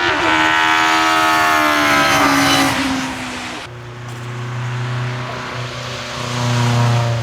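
Hillclimb competition car's engine at high revs, its pitch dropping over the first few seconds. After an abrupt cut, a lower, steadier engine note follows.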